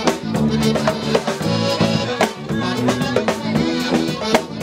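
Live folk band playing: melodeon chords and a tuba bass line with guitar, over sharp, frequent drum strikes.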